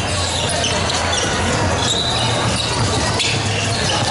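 Basketball being dribbled on a sprung wooden court, with sneakers squeaking on the floor and the echoing background noise of a sports hall.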